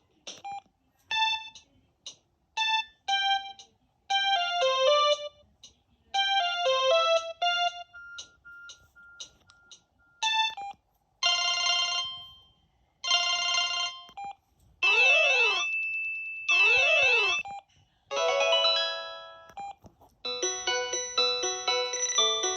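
Samsung SGH-M110 mobile phone playing a run of its built-in ringtones and alert tones through its small speaker. First comes a short melody of beeping electronic notes, then brief chimes and two sweeping tones that glide up and down over a held high note. A fuller polyphonic melody starts near the end.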